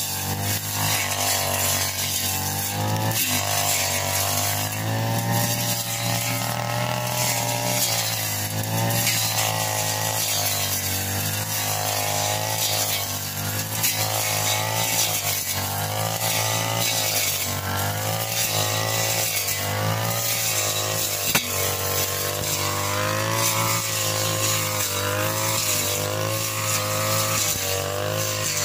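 Backpack-mounted petrol brush cutter running steadily at high speed, its engine pitch dipping and recovering again and again as the cutting head sweeps through grass.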